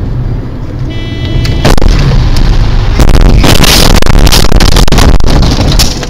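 A car crashing, recorded from its own dashcam: driving noise, a brief high tone about a second in, then a loud impact at about two seconds and a louder one at about three, with the windscreen glass shattering. The crash noise goes on for nearly three seconds and stops just before the end.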